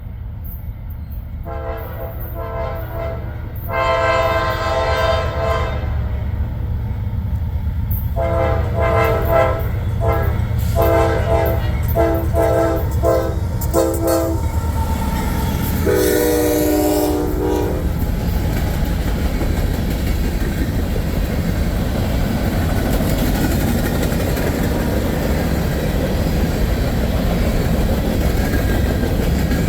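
A CSX GE freight locomotive's second-generation Nathan K5LA chime horn sounding: two long blasts, a run of short blasts, then one more on lower notes, over the low rumble of the diesel. After that the empty grain train rolls past, with steady loud wheel and rail noise and clacking over the rail joints.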